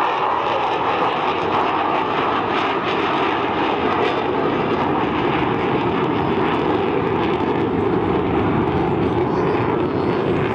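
Avro Vulcan bomber in flight, its four Bristol Olympus turbojets giving a loud, steady jet noise.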